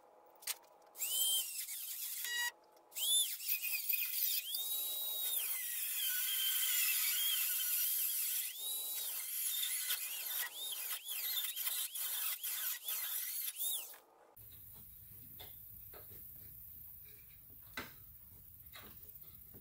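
Small high-speed rotary cutting tool cutting out a metal brace in a truck radiator core support, its high whine dipping in pitch as it bites and rising again as it frees up, several times over. It cuts off abruptly about two-thirds of the way through, leaving faint clicks and a low hum.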